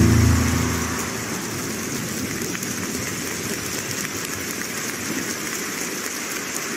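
Skating program music fades out about a second in, then a large arena audience applauds steadily.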